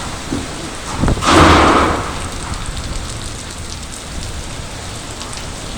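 Very heavy rain pouring steadily onto surfaces. About a second in, a loud burst lasting under a second rises over it.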